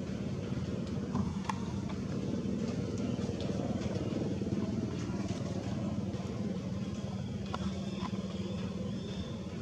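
Steady low drone of an engine running, with a few faint clicks.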